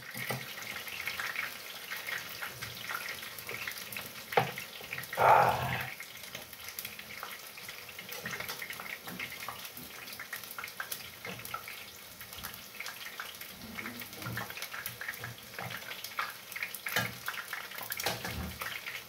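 Meat simmering in liquid in a frying pan on a gas stove, a steady watery bubbling and crackling, with light clicks of hands and utensils over the pan and a brief louder noise about five seconds in.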